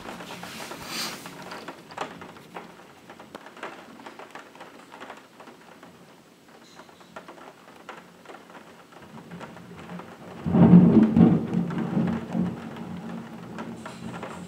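Rain pattering, with many small drops tapping on the window glass. About ten seconds in, a sudden loud clap of thunder rumbles on for about two seconds and fades.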